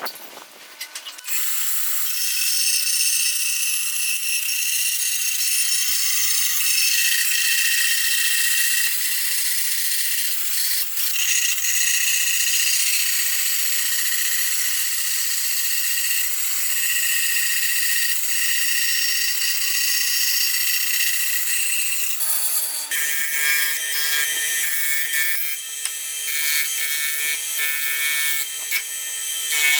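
A power tool running under load with a harsh, high-pitched sound for about twenty seconds. About 22 s in it changes to a lower, pitched machine sound with a rapid rattle.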